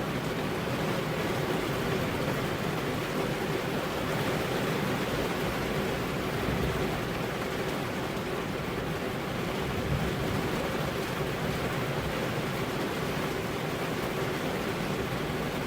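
Steady heavy rain, an even hiss with no separate drops or thunder standing out.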